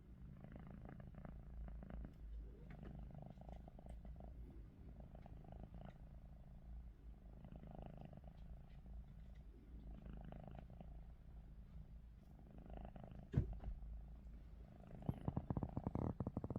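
Domestic cat snoring while awake, a rhythmic rasp with each breath about every one and a half to two seconds. A single sharp knock comes about 13 seconds in, and a louder, rapid rattling starts near the end.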